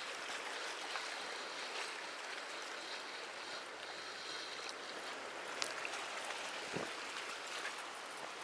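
Steady hiss of seawater washing at the harbour edge, with a few faint clicks in the second half.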